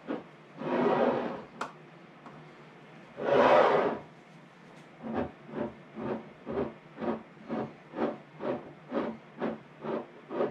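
Vinegar-dampened paper towel rubbing around the glass rims of mason jars, in short strokes about two a second, cleaning the rims so the canning lids will seal. Two longer, louder hissing swells come about one and three and a half seconds in.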